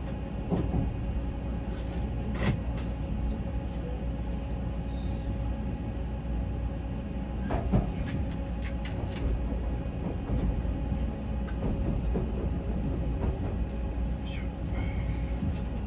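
Odakyu Romancecar limited express train running, heard from inside the passenger car: a steady low rumble, with a few sharp clicks and knocks as the wheels cross rail joints and points.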